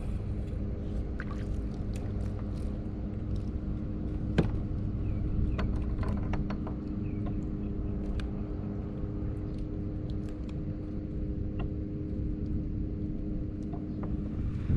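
Steady motor hum at one constant pitch over a low rumble, with scattered light clicks and taps; the hum stops abruptly near the end.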